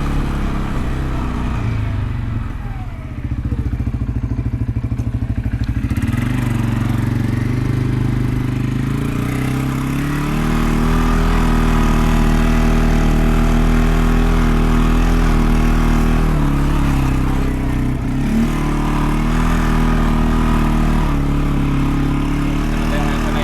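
Small vehicle engine running. It pulses slowly at low speed early on, then picks up about six seconds in and runs steadily at a higher speed, easing briefly near the end.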